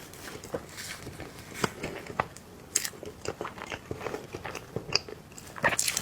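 A person chewing and eating soft cake, with irregular small wet mouth clicks and smacks.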